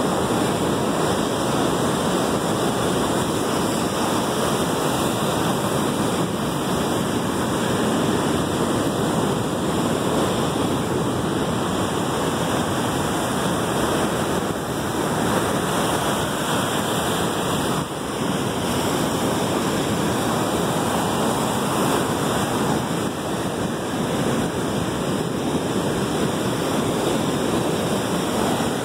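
Ocean surf breaking and washing against the rocks of a stone jetty: a steady, unbroken rush of water noise.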